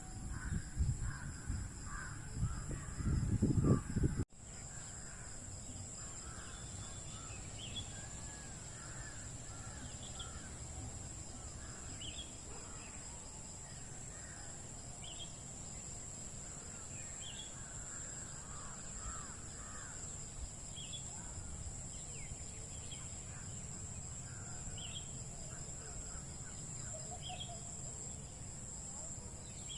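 Birds calling and chirping, with short calls repeating every two or three seconds over a steady high insect-like whine. For the first four seconds a loud low rumble of wind or handling covers it, then stops suddenly.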